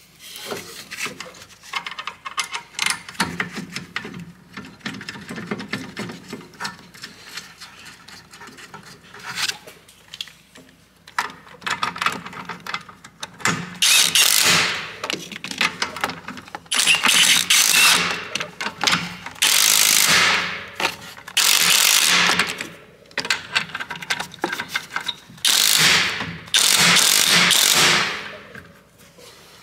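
Cordless power tool running in six short bursts of a second or two each, driving in the 18 mm brake caliper bolts, after a stretch of light clicking and metal handling as the bolts are started by hand.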